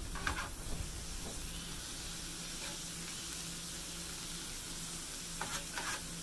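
Chopped vegetables, butter and minced garlic sizzling steadily on a Blackstone flat-top griddle, with a metal scraper and spatula scraping the steel surface in a few short strokes near the start and again near the end.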